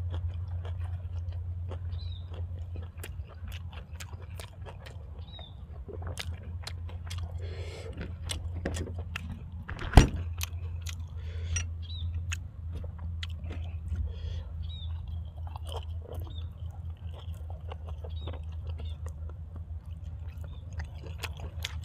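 A person chewing and biting food with many small wet clicks and crunches, over a steady low hum. One sharp, louder click comes about ten seconds in.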